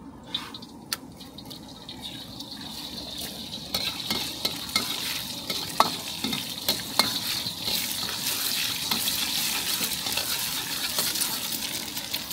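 An egg frying in hot oil in a wok. There are a few sharp clicks at first as the egg is cracked. About four seconds in, a loud sizzling hiss builds and holds, with the metal ladle knocking against the wok now and then as the egg is stirred.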